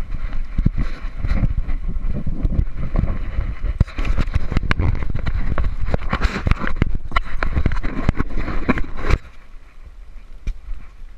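Rumbling and knocking of an action-camera housing being jostled at close quarters, with many sharp knocks over a low rumble. It drops suddenly to quieter rustling about nine seconds in.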